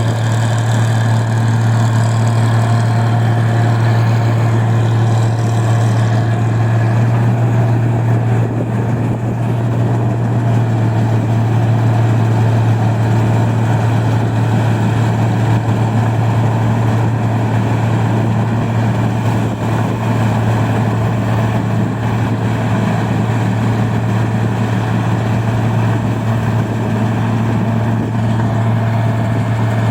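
Engine of a rice-processing machine running steadily at constant speed, with a strong, even low drone.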